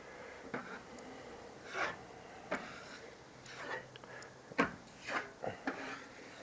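Drywall knife spreading a thin coat of joint compound over a wall patch, a series of short scraping strokes, several spaced a second or so apart and a quicker cluster in the second half.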